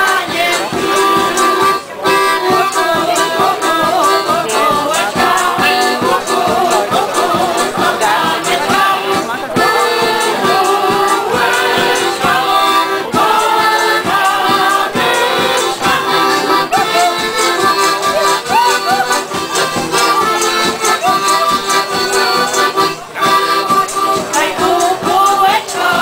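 Women's folk choir singing a Polish folk song to accordion accompaniment, with a bass drum and jingling percussion keeping a steady beat.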